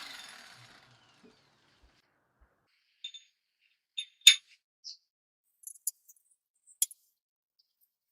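A few scattered sharp metallic clinks and taps, like small metal parts being handled or set down on a hard surface. The loudest comes about four seconds in, after a short noise fades out at the start.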